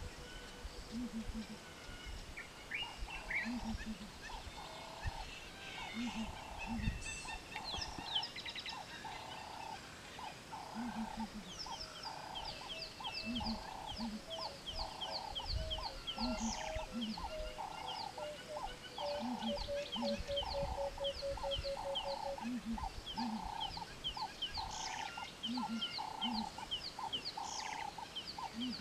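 Wild birds calling: one call repeated steadily about once a second, low paired calls at intervals, and rapid high chirping that joins about twelve seconds in.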